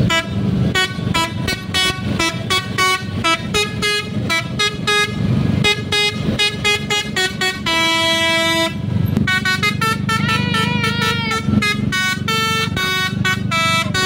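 Bus 'telolet' basuri musical horns, mounted as trumpets on the roof, playing a fast tune of short, clipped notes. About eight seconds in comes one long held note, then a few wavering notes. Engines run underneath.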